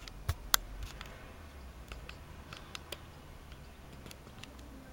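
Handling noise on a handheld camera: sharp clicks and ticks, two loud ones within the first second and fainter ones after, over a steady low rumble.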